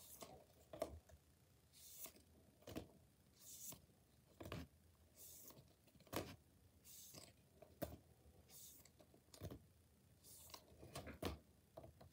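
Faint handling of a stack of plastic-sleeved Pokémon cards, one card at a time slid off the front and tapped onto the back: a short hissy slide followed by a light click, repeated about every second and a half to two seconds, seven times.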